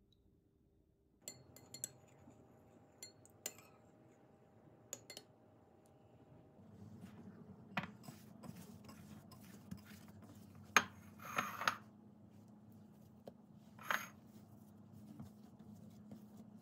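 Light clinks and knocks of glass and ceramic kitchenware being handled, with hands working a soft yeast dough. A sharper knock and a short rustling scrape come a little past the middle, over a low steady hum in the second half.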